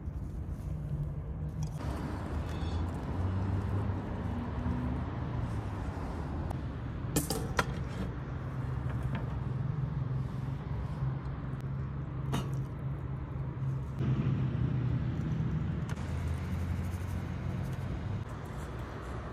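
Steady low rumble of city traffic, with a few sharp clicks about seven and twelve seconds in.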